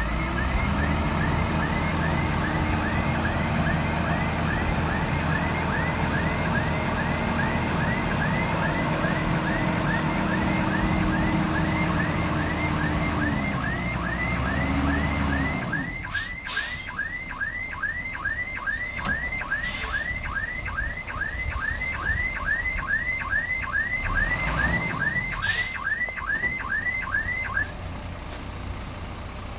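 Backup alarm of a heavy earthmoving machine chirping rapidly and evenly over its loud running engine. About halfway through the engine drops away, the alarm keeps going, and a few sharp metallic clanks follow.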